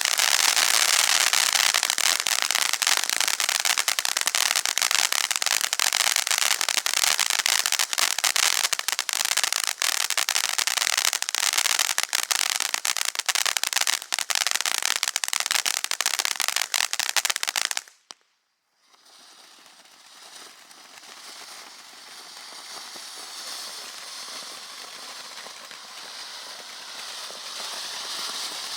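Monkey Mania Peace Elite MM-F2501 firework going off in a dense, loud crackle of many rapid small pops. After about eighteen seconds it cuts off abruptly, and a quieter, steady crackling hiss then slowly builds.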